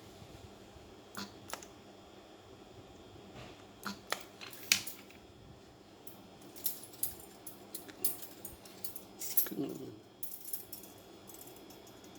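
Irregular sharp metallic clicks and clinks, about a dozen, from small metal parts or tools being handled, with the loudest around the middle and near the end.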